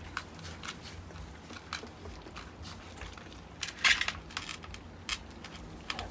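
A litter of young puppies eating puppy food from a tray: scattered wet clicks and smacks of mouths and paws in the food, with a louder burst about four seconds in.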